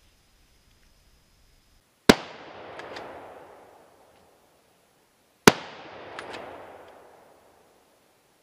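Two hunting rifle shots about three and a half seconds apart, each a sharp crack followed by a rolling echo through the woods that dies away over about two seconds.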